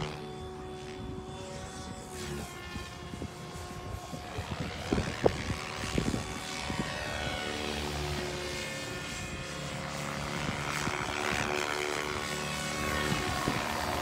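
SAB Goblin RAW 700 electric RC helicopter flying: its 690 mm main rotor, tail rotor and Scorpion brushless motor whine, rising and falling in pitch as it manoeuvres. Wind gusts rumble and knock on the microphone.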